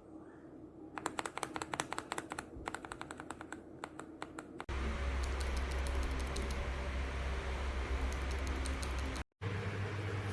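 Typing on a mechanical keyboard fitted with Outemu switches: rapid runs of key clicks. About halfway through, the recording changes and the typing goes on over a steady low hum.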